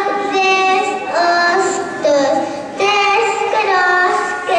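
A group of young children singing together, holding each note in phrases about a second long.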